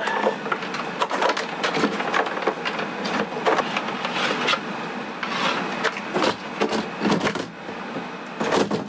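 A Rainman watermaker control panel and its cables being handled and pushed into a cut-out in a cabinet: rustling and rubbing with many short knocks and clicks as the plastic panel bumps and scrapes into place.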